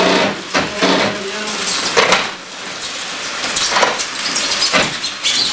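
A hot-knife foam cutter is dragged through the foam of an insulated concrete form wall. It knocks and scrapes about four times against the back of a plastic furring strip buried in the foam.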